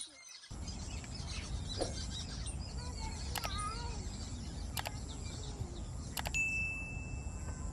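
Outdoor ambience with birds chirping over a steady low rumble. Laid over it are the sound effects of a subscribe-button animation: three sharp clicks a second or so apart, then a short, high bell-like ding held for about a second near the end.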